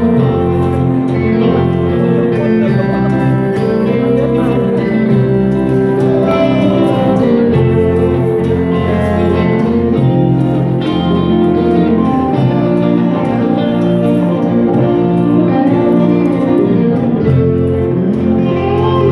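Live band music led by electric and acoustic guitars over a steady, moving bass line, playing without a break.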